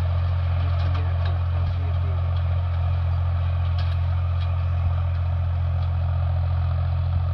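HMT 3522 tractor's diesel engine running steadily under load as it pulls a 10-disc harrow, a constant low drone with a few faint knocks.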